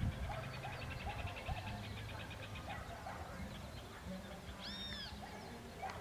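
Several birds calling: a rapid dry trill over the first couple of seconds, short low arched notes about twice a second, and one louder, arching call near the end.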